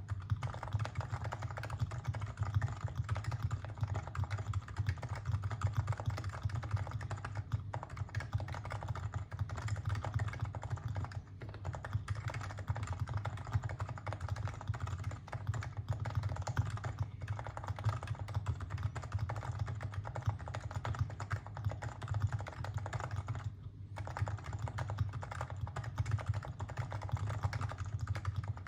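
Continuous fast typing on a Topre electrocapacitive keyboard, a Realforce R2 PFU 45 g in a Norbaforce Mk II case, with Krytox 205g0-lubed sliders, Deskeys light blue domes, a gasket mod and stock keycaps. The keystrokes run together in a dense stream, with one brief pause about three-quarters of the way through.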